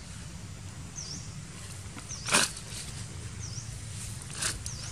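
Outdoor ambience: a short high chirp that dips and rises, repeating about once a second, over a steady low rumble. Two sharp crackles cut through it, a loud one about halfway through and a smaller one near the end.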